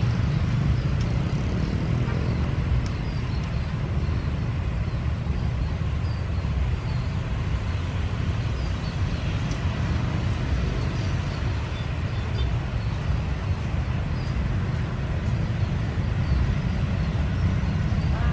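Motorcycles passing on a road over a steady low traffic rumble.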